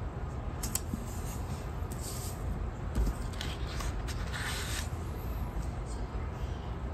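Hands working paper stickers: a sticker rubbed down onto the planner page and a sticker sheet handled, with soft taps, rubs and brief rustles. A steady low hum runs underneath.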